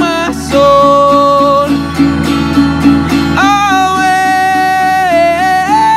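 A man singing long, held, wordless notes over a strummed acoustic guitar in a steady rhythm, with a burst of sharper strums a couple of seconds in.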